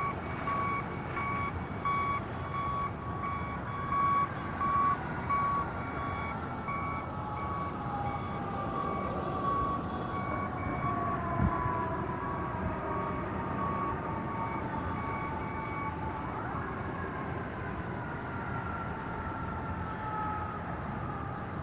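A vehicle's reversing alarm beeps in a steady, regular pattern and stops about three-quarters of the way through. Over it a siren wails in slow glides, falling gradually and then sweeping up sharply before falling again. There is a steady outdoor traffic rumble and a single low thump near the middle.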